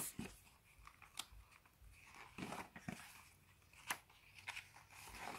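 Pages of a picture book being handled and turned: faint paper rustling with a few sharp clicks, the loudest about four seconds in.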